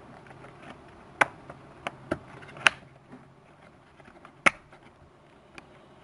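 Laptop RAM module being pushed into its memory slot and pressed down into the retaining clips: a handful of sharp clicks, the loudest about two and a half and four and a half seconds in.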